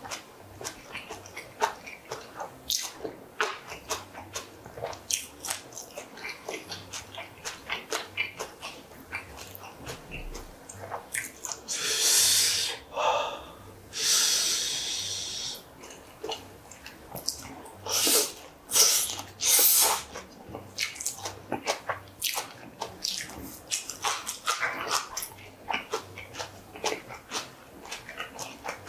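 Close-miked eating: chewing with wet smacks and quick clicks, and a few louder clicks near two-thirds of the way through. Two longer hissing breaths come about halfway through.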